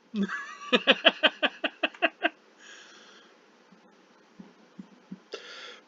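A person's voice: a quick run of about ten short, evenly spaced pulses in just over two seconds, followed by two breathy puffs of air.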